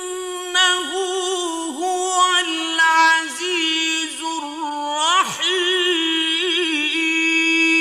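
Male Qur'an reciter chanting in the melodic mujawwad style: one long unbroken phrase held mostly on one pitch, with rapid wavering ornaments and brief dips in pitch.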